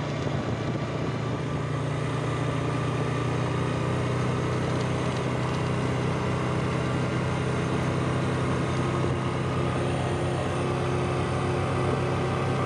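ATV engine running at a steady pitch as the quad rides along a gravel road.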